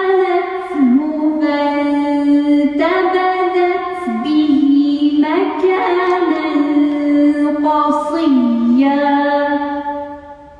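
A woman's solo voice chanting a Quran recitation in melodic style: a few long held notes joined by ornamented turns in pitch, fading out near the end.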